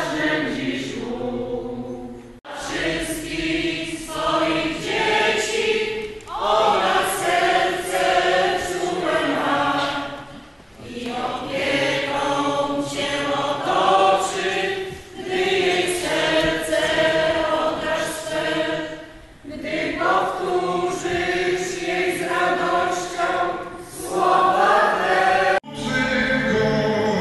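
A church choir and congregation singing a hymn together in long held phrases, with brief gaps between lines. The singing cuts off abruptly about two and a half seconds in and again near the end.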